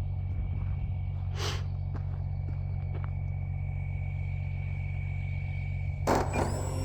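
Electric motor and propeller of a 3D-printed RC sport plane in flight, a steady whine over a low rumble. A brief rushing noise comes about a second and a half in, and a louder one just before the end.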